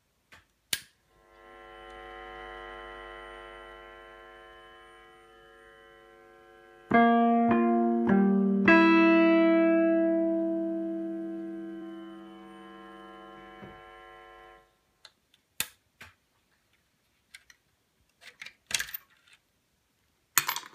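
Wurlitzer 200 electric piano heard through its own amplifier and speaker: a held chord that fades, then several struck notes about seven seconds in that ring and die away, all cutting off suddenly about two-thirds of the way through. A few sharp clicks follow near the end.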